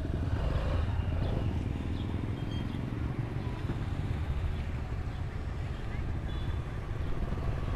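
Busy market ambience: indistinct chatter of a crowd of shoppers over a steady low rumble.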